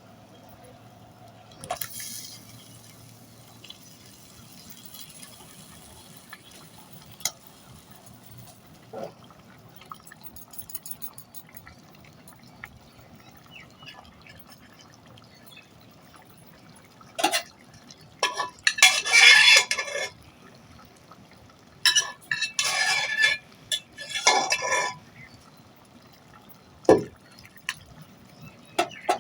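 Cooked moong dal poured into a kadai of fish-head masala: liquid splashing in several pours over the second half, with clinks of metal utensils.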